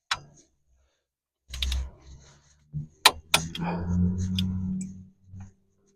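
Sharp metallic clicks from a click-type torque wrench and its ratchet as the caliper-bracket bolts are torqued to 55 foot-pounds, with a steady low hum in the middle.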